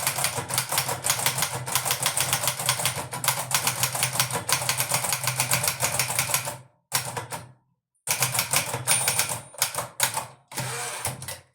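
Hermes Baby (1958) portable manual typewriter being typed on fast: a dense, even run of key strikes that breaks off about two-thirds of the way through, picks up again in short spurts, and ends with a brief steady noisy stretch before stopping.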